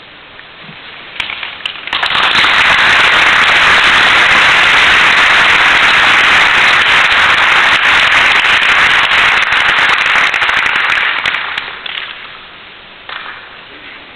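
Audience applauding: a few scattered claps, then dense applause for about ten seconds that fades away.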